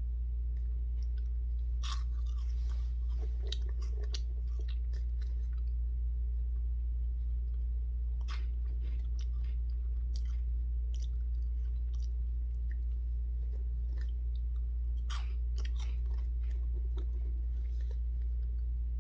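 Someone chewing crunchy cheese puffs close to the microphone, with irregular crisp crunches, the sharpest about 2, 8, 10 and 15 seconds in. A steady low hum runs underneath throughout.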